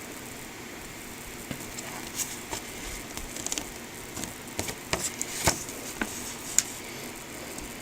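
Hands sorting through the paper and plastic contents of a small model kit's box: scattered light rustles and clicks, busiest from about two to six and a half seconds in, over a faint steady hiss.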